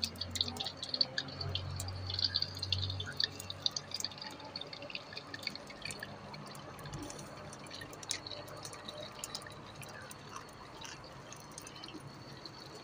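Potato chips deep-frying in hot oil in a wok over a wood fire: steady sizzling and bubbling with scattered pops and crackles. The sizzle is strongest in the first few seconds.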